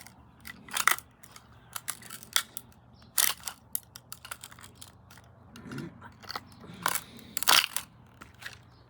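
Plastic toilet fill valve being smashed and crushed: irregular sharp cracks, crunches and clacks of hard plastic giving way, with a loud cluster about seven seconds in.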